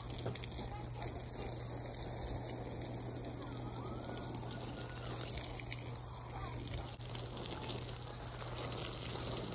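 Steady rush of water running from a garden hose.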